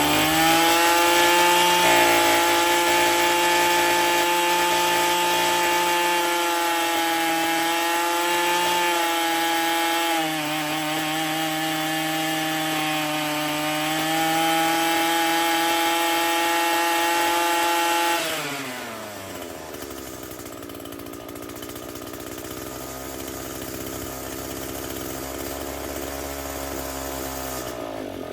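Echo SRM-225 string trimmer's small two-stroke engine held at high revs for about eighteen seconds with slight wavers in pitch, then dropping back to a steady idle. It is being test-run during carburetor adjustment.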